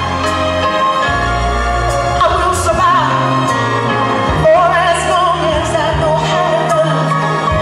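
A slow song: a singer holds long notes with vibrato over a band accompaniment with sustained bass notes.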